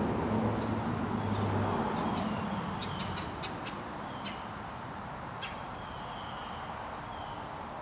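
A distant vehicle passing on a road, its low hum fading away over the first few seconds, while birds chirp with short high falling notes and a quick run of sharp chips in the middle.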